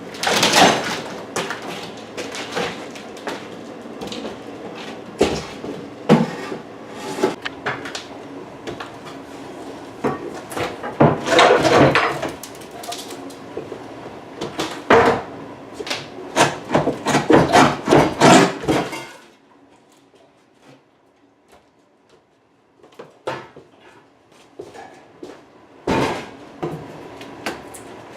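Repeated knocks and bangs of wood and hand tools during kitchen demolition work, over a steady hum. The hum cuts off suddenly about two-thirds of the way through, leaving only a few scattered knocks.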